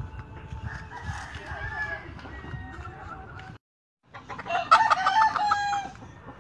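Rooster crowing: a fainter crow about a second in, then, after a half-second dropout, a loud close crow lasting over a second.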